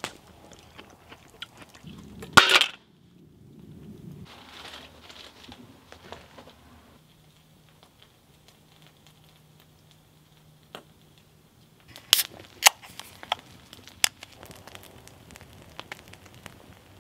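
Wood campfire crackling, with sharp pops that come thickest and loudest from about twelve seconds in. A single short, loud burst of noise comes a couple of seconds in.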